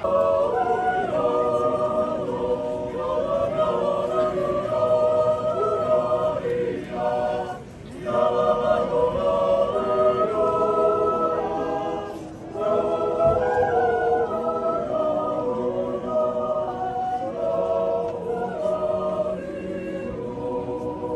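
Swiss yodel choir of men's and women's voices singing a cappella in held multi-part chords, with two short breaks between phrases and trailing off near the end.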